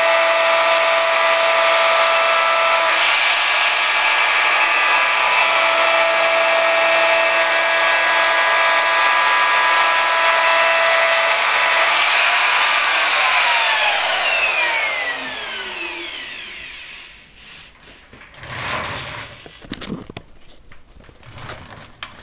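Ridgid R2901 router running at speed, its 90-degree Yonico carbide bit engraving letters into wood, a loud steady whine. About 13 seconds in it is switched off and winds down, its pitch falling, followed by a few knocks and rubbing from handling.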